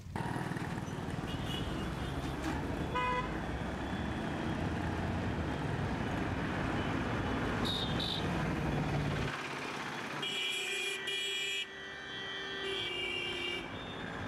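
Road traffic noise with vehicle horns: a steady rumble with one short toot about three seconds in, then several horns sounding together, overlapping, from about ten seconds until near the end.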